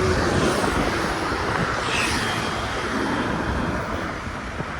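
Steady road and traffic noise from travelling along a highway: a continuous rumble and rush of wind and passing vehicles, easing slightly near the end.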